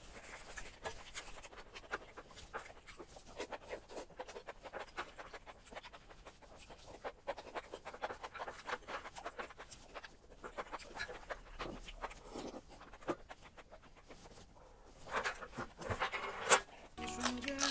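Close-miked eating of chili-oil enoki mushrooms: a dense run of small mouth clicks and slurps, wooden chopsticks scraping a metal tray, and quick breaths in and out against the chili heat. Music comes in just before the end.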